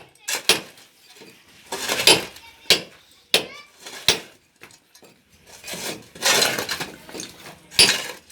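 Irregular clatter of workers' hand tools on hard masonry and rubble: several sharp metallic knocks with rattling scrapes between them.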